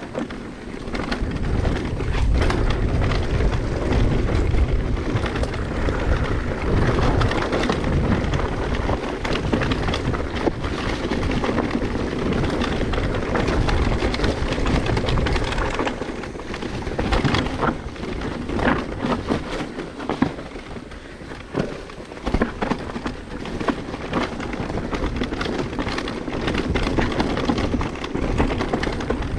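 Mountain bike ride heard through a microphone buffeted by wind: a continuous, uneven low rumble of wind and tyre noise, with scattered clicks and rattles around the middle.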